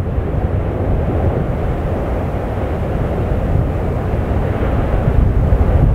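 Steady low rumbling roar of the erupting Fagradalsfjall volcano's crater, growing slightly louder near the end.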